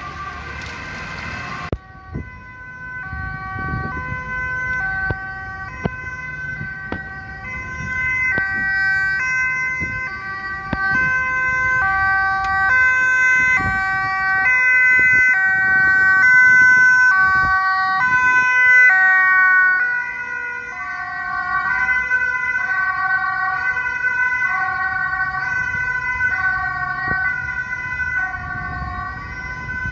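Dutch ambulance two-tone siren alternating between a high and a low note, cutting in about two seconds in. It grows louder to a peak, then drops off sharply about twenty seconds in as the ambulance moves away, over the low rumble of road traffic.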